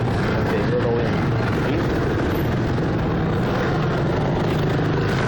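Steady low hum of vehicle engines running, with no sudden sounds.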